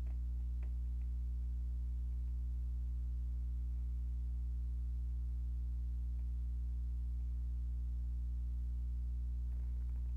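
Steady low electrical hum with several evenly spaced pitches, unchanging throughout, with a few faint ticks in the first second.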